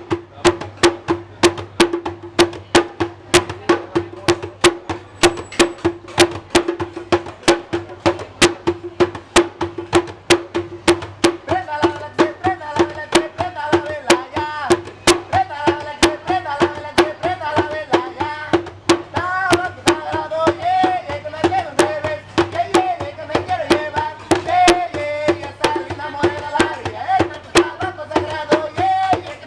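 Music with a steady, fairly fast beat of sharp percussive clicks over a held drone note; about twelve seconds in, a wavering melody joins above it.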